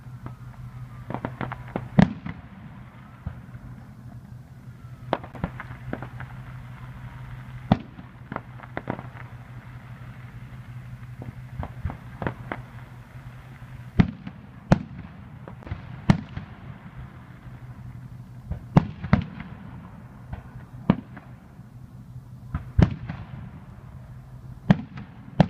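Aerial fireworks shells bursting in about twenty sharp bangs at irregular intervals, sometimes two or three in quick succession, over a steady low hum.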